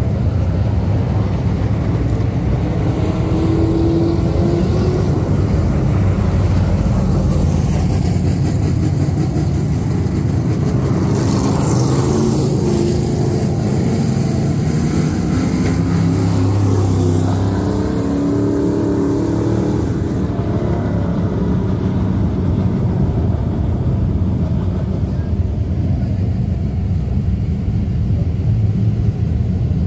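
Dirt-track race car engine running hard around the oval, its pitch rising and falling through the turns, loudest as the car passes close around the middle, then lower and duller near the end.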